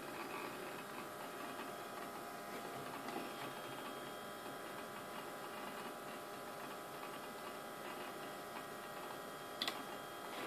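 Power Macintosh 7500 running as it finishes booting: a steady whine of fan and drive with soft, irregular ticking from the hard drive working as the desktop loads. A sharp click comes near the end.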